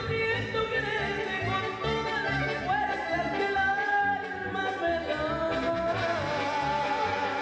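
Band playing Latin dance music, with a steady beat and a held melody line that glides from note to note.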